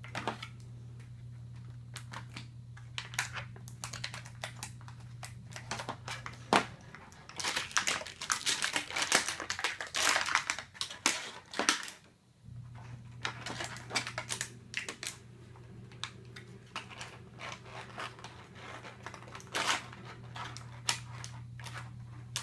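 Clear plastic Shopkins 12-pack packaging crackling and clicking as a child's hands handle and squeeze it, in irregular runs of sharp clicks, busiest around the middle and again near the end.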